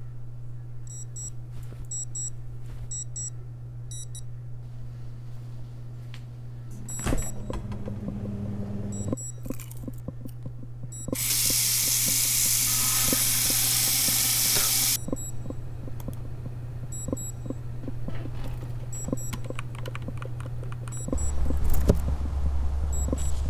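A tap runs into a bathroom sink for about four seconds midway. Around it are a low steady hum and faint, scattered high electronic beeps, and a deeper tone comes in near the end.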